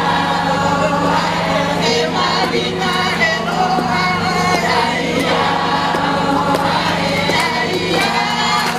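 A choir of women singing a praise song together, many voices at once, over a steady low hum.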